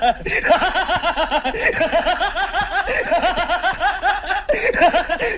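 A person laughing in a rapid, unbroken string of short high-pitched pulses, about six a second, used as a comic sound effect.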